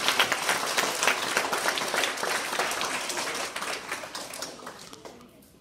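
Audience of children and adults applauding, a dense patter of many hands clapping that thins out and dies away over the last two seconds.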